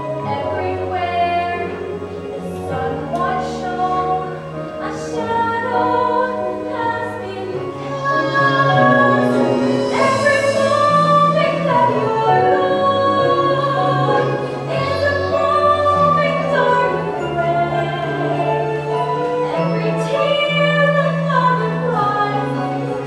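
A female singer performing a musical-theatre ballad over instrumental accompaniment, with long held sung notes above sustained bass notes that change every second or two.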